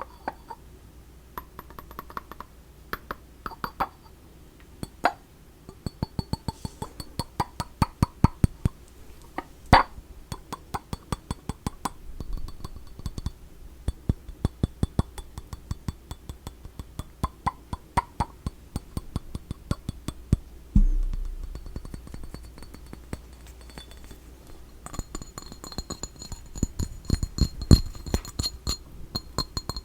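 Fingertip and fingernail tapping and handling of small cat-themed goods: runs of quick, sharp taps and clinks, some with a short ringing tone like glass or ceramic. The ringing grows brighter over the last few seconds.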